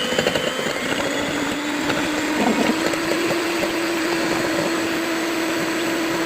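Electric hand mixer running steadily, beating oil and milk together for a cake batter. A whirring motor noise with a steady hum settles in about two seconds in.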